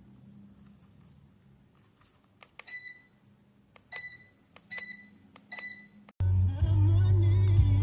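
Deka F5DC DC ceiling fan's receiver beeping four times, each short beep coming just after a small click, as remote-control button presses are acknowledged. Loud music cuts in suddenly about six seconds in.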